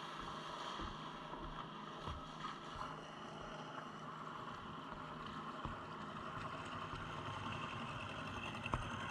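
Small-boat outboard motor (a Tohatsu 30) running at low speed as the mini-boat approaches, with water lapping around a floating camera platform. It grows gradually louder toward the end.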